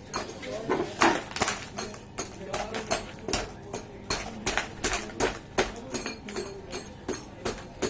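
Irregular sharp knocks and clinks of hard objects being struck or tapped, several a second.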